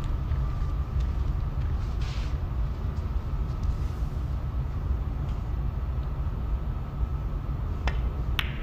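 Steady low rumble of background noise in a snooker arena, with a faint thin steady hum above it. Near the end, two sharp clicks about half a second apart: a snooker cue striking the cue ball and the ball contact that follows.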